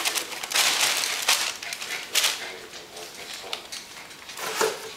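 Wrapping paper rustling and crinkling in bursts as a small child pulls and tears it off a present, loudest in the first two seconds and quieter after.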